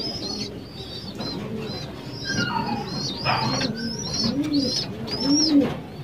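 Racing pigeons cooing in the loft, the low coos coming quicker in the second half, with many short high chirps from other birds over them.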